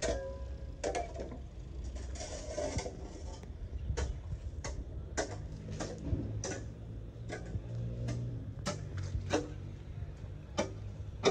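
A series of sharp, irregularly spaced clicks or ticks over a steady low hum, coming more often from about four seconds in.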